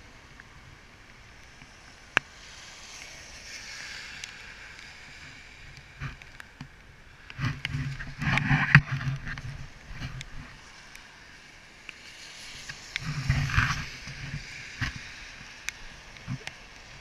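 Traffic passing on a rain-wet road: tyre spray hiss with engine hum. Two louder passes come about halfway through and again a few seconds later, with scattered small clicks between.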